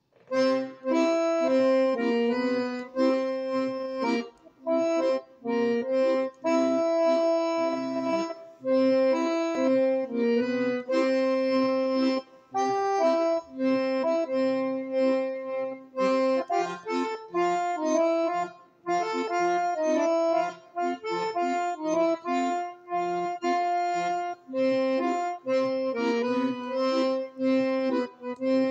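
Background music: a melody of held notes over a chordal accompaniment, moving in a steady, bouncy rhythm.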